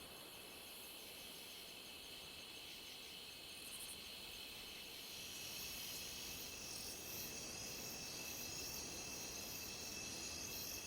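Rainforest insect chorus: several insects calling at once in steady, high-pitched trills, with a further high call joining about halfway through.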